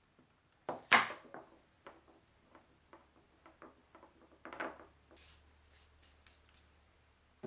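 Knocks and clatter on a wooden worktable as a hot glue gun is put down and a wire lampshade frame is handled, the loudest knock about a second in and another cluster about four and a half seconds in. Faint scratchy rubbing follows.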